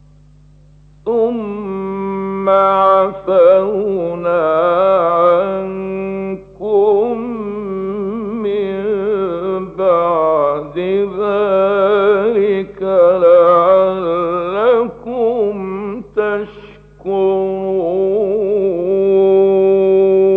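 A male Quran reciter chanting in melodic tajweed style: long ornamented phrases of held, wavering notes, broken by short breaths. It is an old radio recording, with a steady low hum and a narrow, muffled top end.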